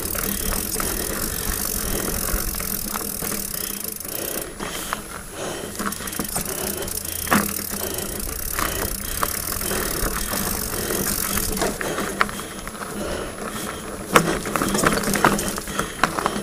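Diamondback Mason Pro hardtail mountain bike rattling over a rocky dirt descent: a steady clatter of tyres on loose dirt and stones with frequent short knocks from the bike, and wind hiss on the microphone. Two sharper knocks stand out, one about seven seconds in and a louder one near the end.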